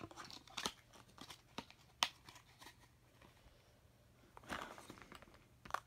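Faint clicks and taps of plastic makeup palettes being handled and set down, with a brief rustle a little past the middle.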